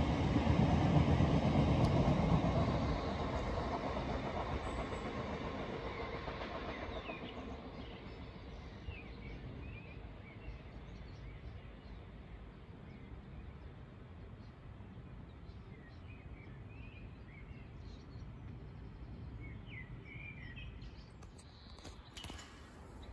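Freight train wagons rumbling past on the main line, the rumble fading away over the first several seconds. Then a quieter background with birds chirping.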